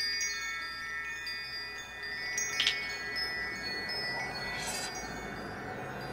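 Electroacoustic performance music of layered, chime-like high sustained tones that enter and fade. A short noisy burst comes about two and a half seconds in, and a swish follows near five seconds.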